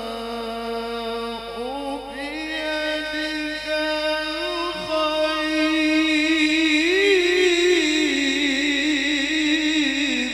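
A man reciting the Quran in a melodic, sung style into a microphone: long held notes with a wavering, ornamented pitch that climbs in steps after about four seconds and grows louder, then the phrase ends near the end.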